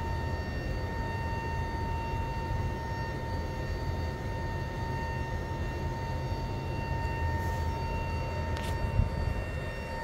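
The A330-P2F main-deck cargo door's hydraulic drive running as the door closes: a steady whine over a low rumble, with a sharp click about nine seconds in.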